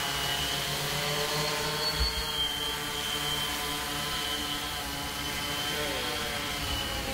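Cinestar 8 octocopter flying low: its eight motors and 14-inch propellers give a steady multi-toned buzzing whine. The pitch shifts slightly and dips briefly about six seconds in.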